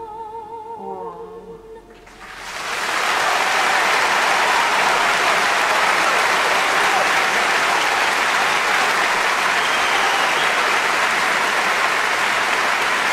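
A female singer holds the last note of a stage ballad with vibrato and lets it fade about two seconds in. A large concert audience then breaks into applause, loud and steady.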